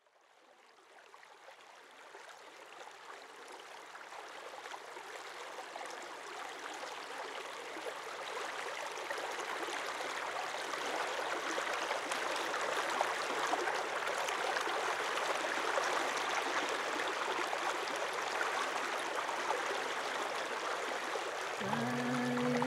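Flowing stream water, an even rushing that fades in from silence and grows steadily over the first dozen seconds. Near the end, music with held notes comes in over it.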